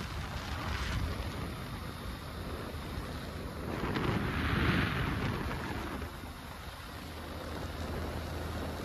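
Wind buffeting the microphone over a steady low rumble, with a brief louder hiss about four seconds in.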